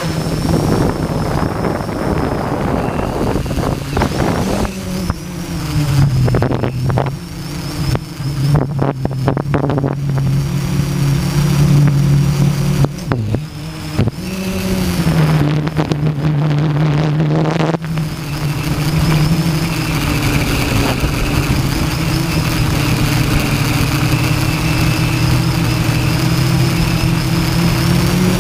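Hexacopter's electric motors and propellers running with a steady hum and a high whine, the pitch stepping up about five seconds in and dipping then rising again a little past halfway as the throttle changes. Gusty wind buffets the microphone in repeated crackles through the middle stretch.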